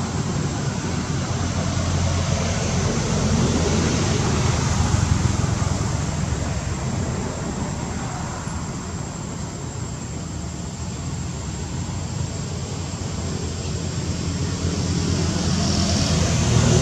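Steady rumble of road traffic, swelling a little about five seconds in and again near the end.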